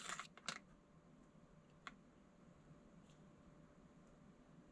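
Near silence: room tone, with a faint short sound about half a second in and a single faint click near two seconds.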